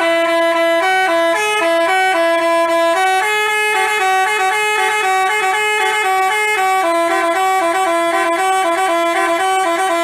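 A telolet bus horn of the basuri type plays a loud tune of quick stepping notes, with one longer held note partway through.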